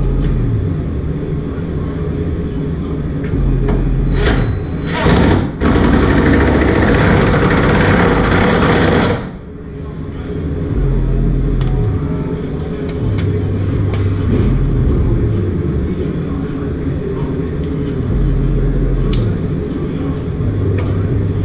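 Cordless impact wrench hammering on a cab mount bolt under a vehicle: two short bursts about four seconds in, then a steady run of about three seconds that cuts off suddenly. A repeating deep bass line plays underneath throughout.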